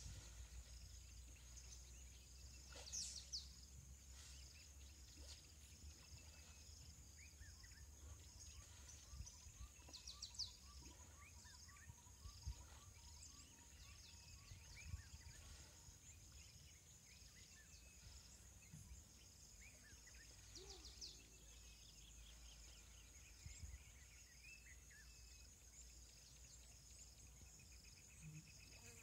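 Faint wild ambience: a steady, pulsing high-pitched insect drone, with scattered short bird chirps and a quick run of repeated notes in the middle, over a low rumble.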